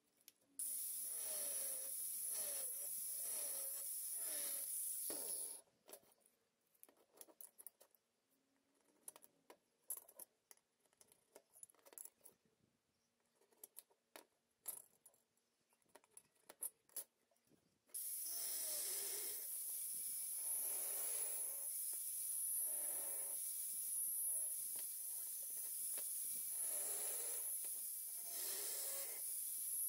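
A steady hiss that swells and fades roughly once a second, in two stretches of several seconds each, with scattered faint clicks in the quiet stretch between them.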